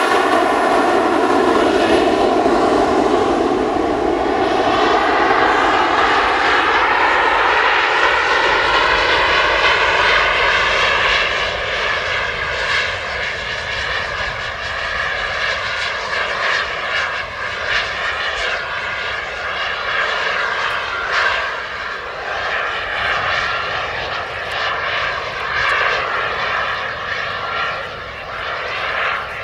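Four JetsMunt M166 model jet turbines of a large RC Airbus A380 running at high power as it climbs away: a steady roar with several whining tones that rise slightly in pitch. After about ten seconds the roar fades, leaving a quieter whine.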